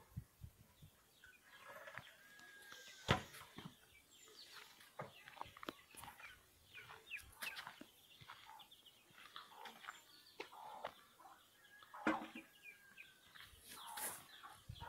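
Faint outdoor village ambience: scattered short animal and bird calls, with occasional sharp knocks and clicks. The loudest knocks come about three seconds in and about twelve seconds in.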